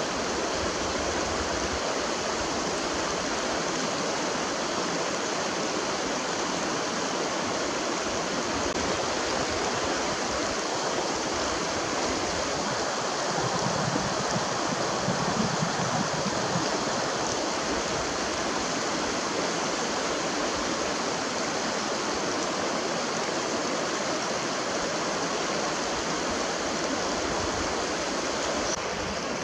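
Rushing mountain stream pouring over rocks: a steady, even hiss of water with no bird calls standing out.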